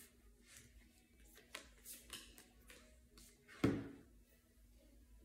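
Quiet handling of tarot cards: soft rustles and light taps as cards are shuffled and laid out, with one louder knock or rustle about three and a half seconds in. A faint steady hum runs underneath.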